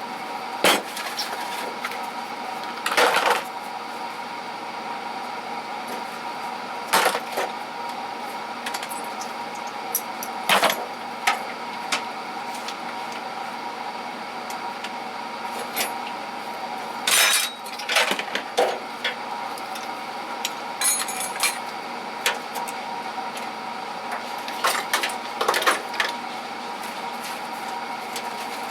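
Metal tools and small parts clinking and clattering as they are handled and set down while a toolbox is sorted, a knock every few seconds, some in quick pairs, over a steady background hum.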